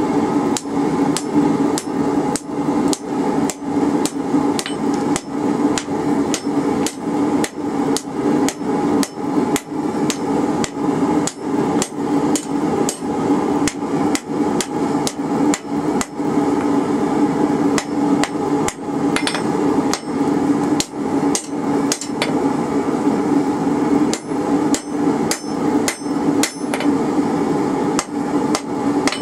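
Hand hammer striking glowing-hot rebar on an anvil, bending the bar down over the anvil's edge. A steady run of blows, two to three a second, over a steady hum.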